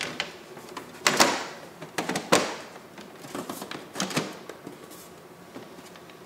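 Metal side panel of a PC tower case being slid back on and pressed into place: a scrape about a second in, then several knocks and rattles as it seats.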